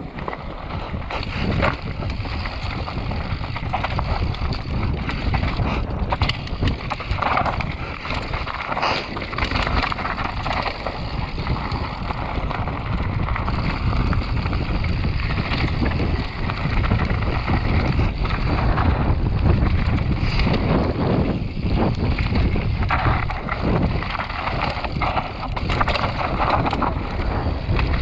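Enduro mountain bike descending a rocky dirt singletrack, heard from a camera on the bike or rider: a continuous rumble and crunch of tyres over loose stones, with constant rattling and clacking of chain and frame over the bumps.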